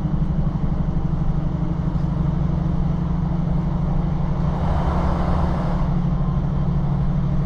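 Steady running noise of a diesel multiple-unit train heard from inside the carriage: a constant low engine and rolling hum. A brief hiss swells and fades about five seconds in.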